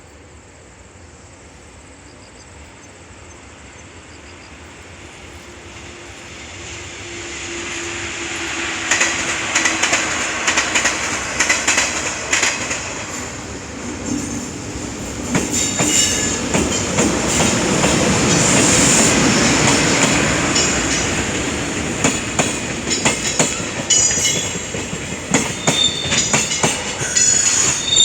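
A JR Freight train hauled by an EH500 electric locomotive approaches, growing steadily louder over the first several seconds, then rolls past with a loud, continuous rumble. From about nine seconds in, the wheels make repeated sharp clicks.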